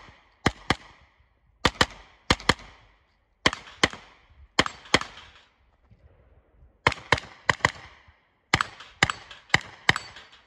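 Gunshots from a JP Rifles JP-5 9mm pistol-caliber carbine fired in quick pairs, about twenty shots in all, each with a short echo. There is a break of about a second and a half near the middle before the pairs resume.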